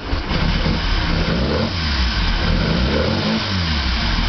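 Engine just started and running, revved up and down on the throttle a few times, its pitch rising and falling about halfway through.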